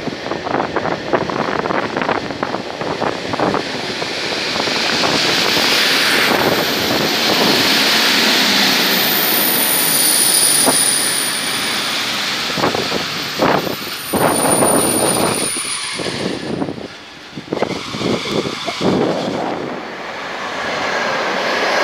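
Passenger trains passing along a station platform: a loud, rushing running noise with spells of wheels clattering over rail joints. A thin, high whistle sounds through the middle stretch.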